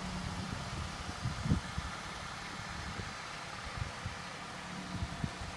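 Car engine idling with a steady low hum, with a few irregular low thumps, the strongest about a second and a half in.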